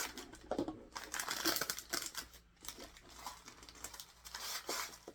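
Plastic candy packaging crinkling and rustling as it is handled, with a few small clicks.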